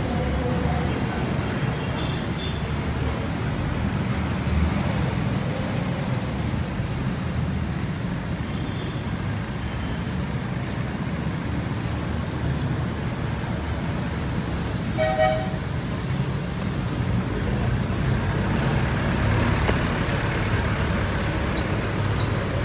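City street traffic: a steady rumble of passing vehicle engines, with a short horn toot about two-thirds of the way through.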